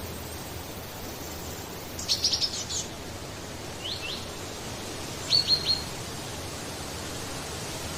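A small bird chirping: a quick run of high notes about two seconds in, two short notes near four seconds and three more a little later, over a steady background hiss.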